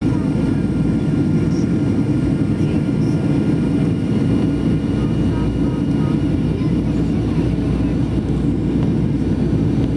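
Steady engine and airflow rumble inside the cabin of a Boeing 737-800, heard at a window seat beside the CFM56-7B turbofan, with a faint steady whine above it, as the jet descends to land.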